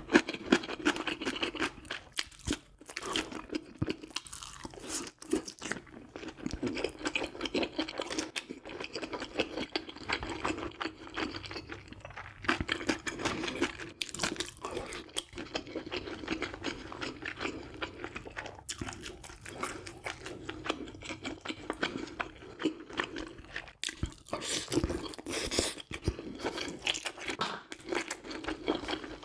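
A person chewing and crunching food close to the microphone: a continuous run of short, irregular clicks and crunches.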